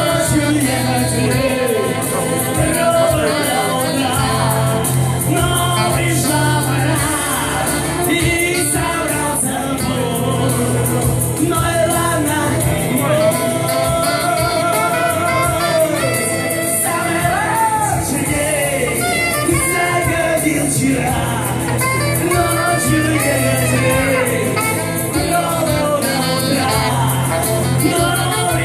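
Live pop song: a male vocalist singing into a microphone over a backing track, with an improvised alto saxophone line woven around the vocal.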